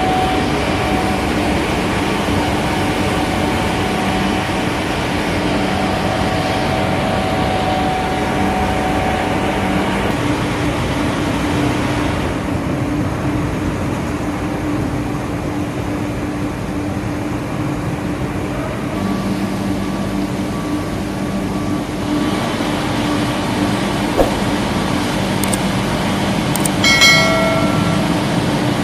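Steady drone and hum of a Kannegiesser continuous batch (tunnel) washer line and other industrial laundry machinery running. A short high tone sounds near the end.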